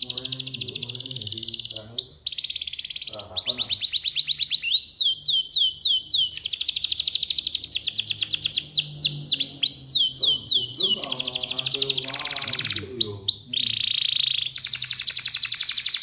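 Domestic canary singing a continuous song of fast trilled rolls: long runs of rapidly repeated high notes, some phrases of slower downward-sweeping notes, with short breaks between phrases.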